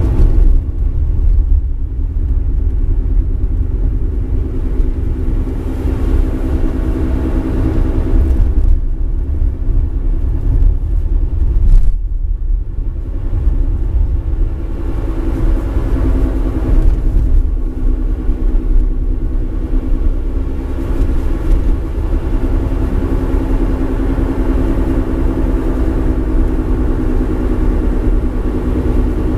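Mitsubishi eK Sport under way: steady road rumble with a steady drone running through it from the left front wheel, the abnormal noise of a failing left front hub bearing.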